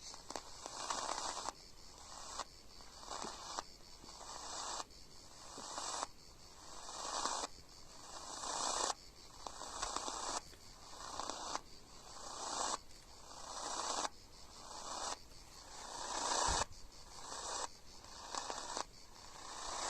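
Longwave radio static from a receiver's loudspeaker: hiss and crackle that swells and cuts off abruptly, again and again about every second or so, with faint steady whistles underneath.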